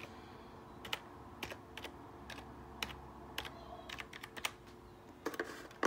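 Typing on a computer keyboard: scattered, irregular keystrokes, with a quick run of several keys near the end, as a password is entered.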